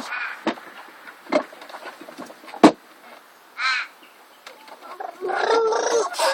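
Crows cawing now and then, with a few sharp knocks in between. Near the end comes a louder, longer run of wavering calls.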